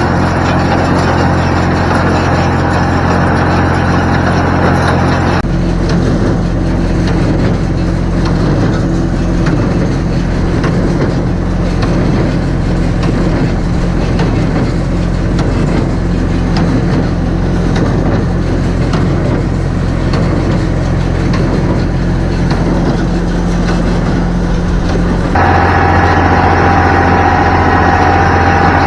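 Massey Ferguson 254S tractor's diesel engine running steadily under load while driving a Welger WSA 350 low-pressure hay baler. The sound shifts abruptly about five seconds in and again near the end.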